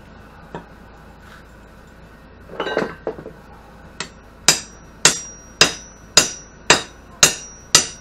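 Square steel tubing being banged to drive a tacked-in insert piece home: some scraping of the metal, then from about halfway in seven sharp blows about two a second, each with a brief metallic ring.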